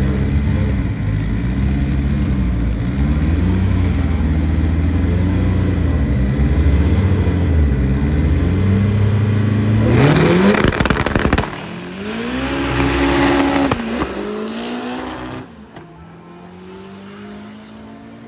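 Drag race car engine held at high revs at the starting line, its pitch wavering up and down. About ten seconds in it launches with a sharp rise in pitch, climbs again after a gear change, then fades as the car runs away down the strip.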